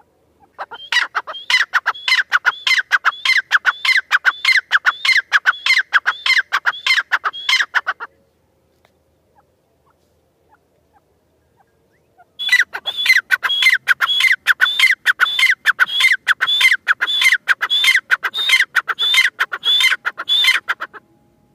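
Female grey francolin calling: a fast run of sharp, evenly repeated notes, several a second, in two long bouts of about eight seconds each with a pause of about four seconds between.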